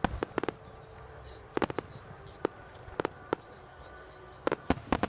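Aerial firework shells bursting: about a dozen sharp bangs at uneven intervals, several coming in quick clusters of two or three.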